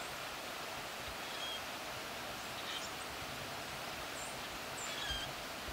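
Outdoor rural ambience: a steady hiss of background noise with short, high bird chirps scattered through it, and a soft low rumble about five seconds in.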